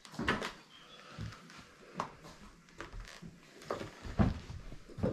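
A series of irregular crunches and knocks, roughly one a second: someone picking a way on foot through broken debris and undergrowth.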